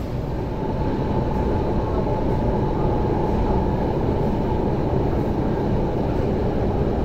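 MTR Tuen Ma Line train approaching through the tunnel: a steady low rumble that grows a little louder about half a second in, with a faint steady tone above it.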